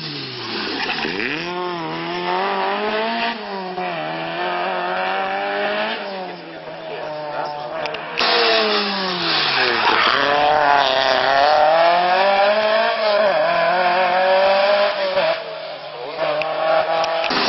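Rally car engine at full stage effort, its pitch climbing and then dropping back again and again through gear changes and lifts. It gets louder about eight seconds in as the car draws nearer.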